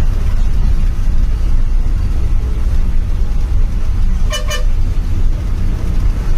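Steady low rumble of a bus engine and road noise from the driver's cabin, with a vehicle horn giving two quick toots about four seconds in.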